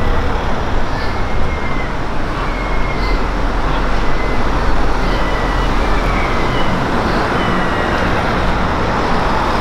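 Steady street noise of road traffic, a dense hiss over a deep rumble.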